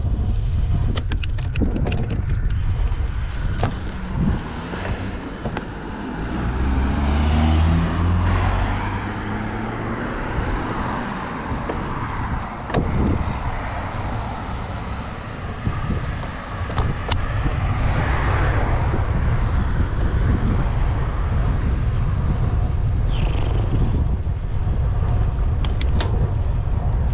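Steady wind rumble on the microphone of a moving bicycle, with a motor vehicle going by about six to nine seconds in, its engine tone shifting in pitch. Scattered light clicks and rattles near the start and the end.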